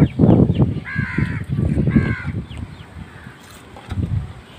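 Crow cawing: harsh caws about a second apart, the last about two seconds in, over low rumbling noise.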